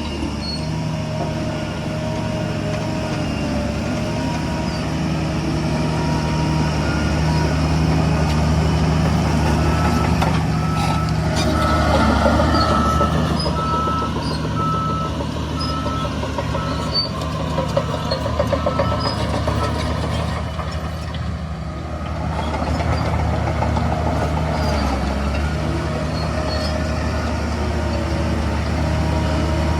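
Heavy diesel engines of dump trucks and earthmoving machines running under load. A backup alarm beeps steadily for several seconds in the middle.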